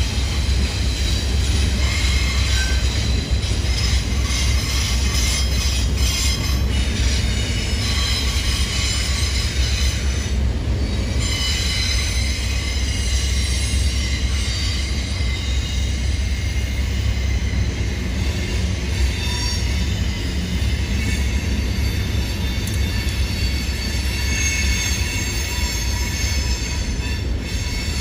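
Freight train cars rolling past: a steady low rumble of steel wheels on rail, with high-pitched wheel squeal coming and going throughout.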